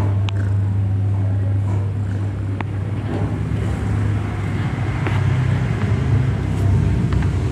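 Mother cat purring steadily while nursing her newborn kittens, a loud, continuous low hum, with a few faint clicks over it.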